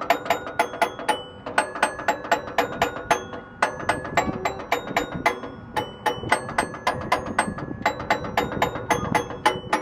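A playground musical panel of tuned metal bars struck rapidly by hand, playing a fast tune. It gives a quick run of bright, ringing notes, about five a second, with brief breaks between phrases.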